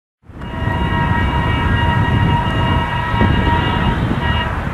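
Indian Railways WDM-3A ALCo diesel locomotive sounding a long multi-tone horn blast that stops near the end, over the low rumble of its diesel engine working hard to accelerate a heavy 21-coach Rajdhani Express.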